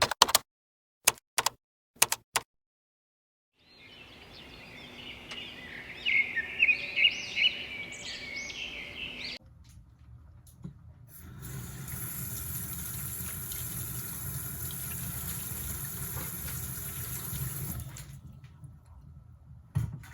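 A few sharp clicks, then birds chirping over a soft hiss, then a steady rush of running tap water for about seven seconds in the second half.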